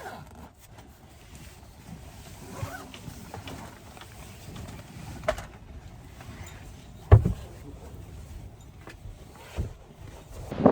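Wind buffeting the microphone as a steady low rumble, with a few scattered knocks and clunks of camping gear being handled; the loudest knock comes about seven seconds in.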